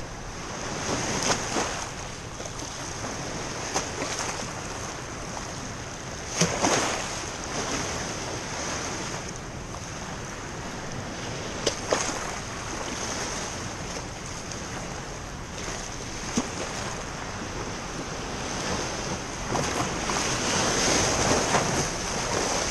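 Small waves washing in and breaking over a rocky shore, with wind buffeting the microphone. A few short sharp knocks stand out, and the surf swells louder near the end.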